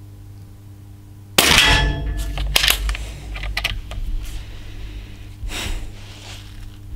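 A Benjamin Fortitude .22 PCP air rifle with a baffled, shrouded barrel fires a single sharp shot about one and a half seconds in, with a brief metallic ring. A run of sharp clicks follows, then a shorter burst near the end.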